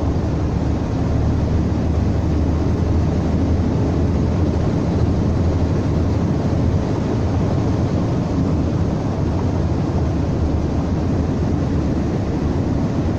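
Van driving at speed, heard from inside the cabin: a steady low drone of engine and road noise. The van has a strong vibration, which the driver takes for a mechanical fault rather than a wheel.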